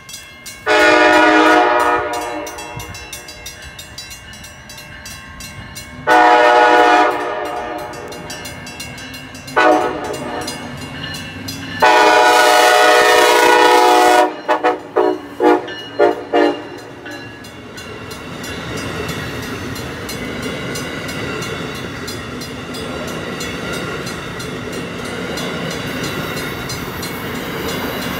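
Amtrak Siemens ACS-64 electric locomotive sounding its horn in the grade-crossing pattern of long, long, short, long, then a quick run of short toots. After that its passenger cars pass close by with a steady clickety-clack of wheels on the rails.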